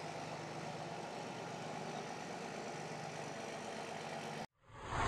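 Tow vehicle's engine running steadily at a low, even level as it pulls the F-16 out of the hangar. Near the end it cuts off abruptly, and a loud rushing sound swells in.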